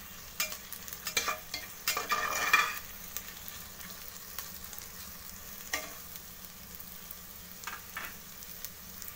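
Sliced onions sizzling as they fry and brown in oil in an aluminium pressure cooker. A spatula scrapes against the pot as they are stirred, in short strokes here and there, with a louder run of scraping about two seconds in.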